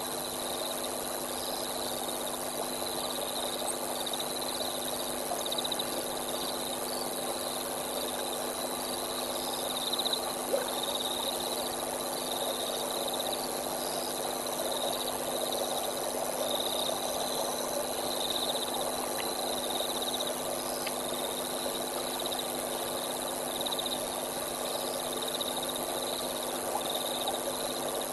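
Steady night chorus of frogs and insects, with high chirping that repeats throughout over a constant low drone.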